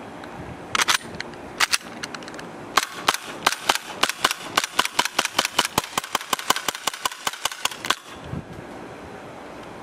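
ICS BLE XPD gas blowback airsoft pistol firing, each shot a sharp crack as the metal slide cycles. A few single shots come in the first two seconds, then rapid fire at about four shots a second for some five seconds, stopping about eight seconds in.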